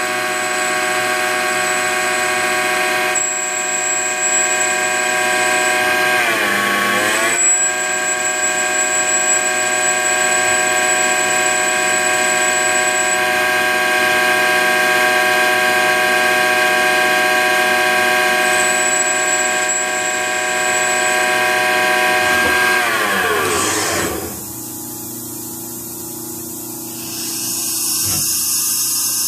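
CNC lathe spindle running at speed while turning a small knife pivot pin, a steady whine of several tones with a thin high tone above it. About six seconds in the pitch dips and comes back up; about 23 seconds in the whine falls away as the spindle winds down and the sound drops. About 27 seconds in a higher, hissy whir comes up as the live-tooling drill spindle starts.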